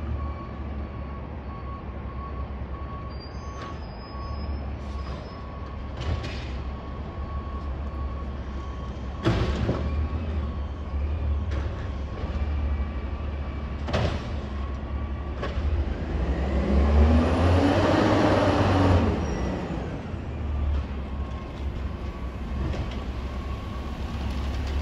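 2011 Autocar garbage truck with an Amrep body, its diesel engine running steadily with a thin steady whine. It revs up for a few seconds past the middle as the hydraulics are worked. Several sharp bangs come at irregular intervals.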